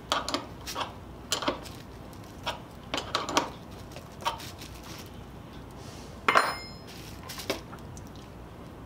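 Small handling noises: scattered light clicks, knocks and plastic-bag rustles as gloved hands work a glued wooden plane tote on its jig. About six seconds in there is one louder metallic clink with a short ring.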